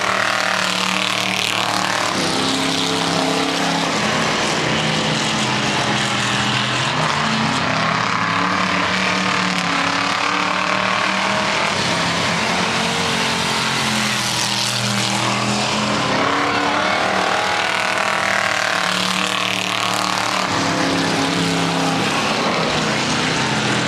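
Several pure stock race cars' engines running hard around a dirt oval, their pitch rising and falling as the cars accelerate, lift and pass.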